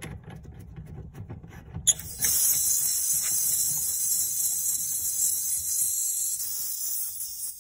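Pressurised gas hissing steadily from a wall medical-gas outlet as a flow meter's threaded DISS fitting is screwed onto it. The hiss starts with a sharp click about two seconds in and falls away near the end, after a couple of seconds of faint metallic clicking from the fitting being turned.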